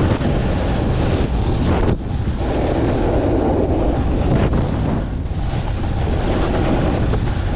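Wind rushing over the microphone of a moving snowboarder, mixed with the hiss and scrape of a snowboard riding over packed snow; the noise is loud and steady, easing briefly twice.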